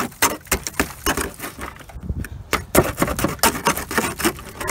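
A thin tool prodding and scraping at badly rusted car body steel around a rotted-out battery tray and inner wing, making a quick, irregular run of clicks, taps and crunches as flaking rust gives way.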